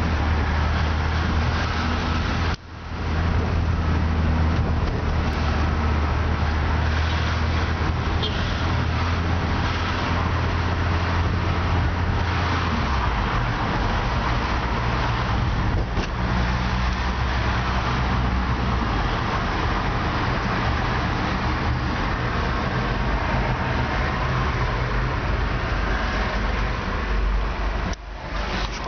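Vehicle engine and road noise heard from inside the cab while driving in city traffic: a steady low engine hum under tyre and traffic noise. The engine's low note changes about halfway through.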